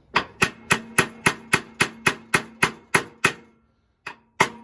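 A brass hammer tapping a steel key into a shaft keyway in quick, even strokes, about four a second, each with a short metallic ring. After about a dozen taps there is a brief pause, then the tapping resumes. The blows are peening out the end of the key.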